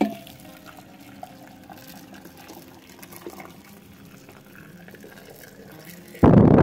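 Boiling water poured from a kettle into a three-litre glass jar of apricot halves: only faint sound at first, then the stream of water rushing into the jar starts loud about six seconds in.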